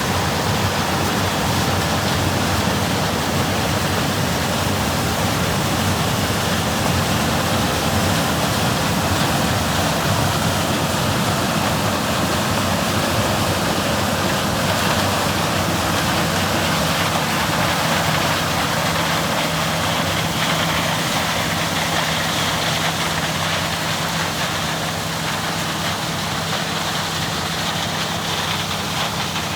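John Deere 9670 combine running steadily while harvesting corn: a constant rush of machinery noise over a low engine drone. A low engine tone strengthens about halfway through.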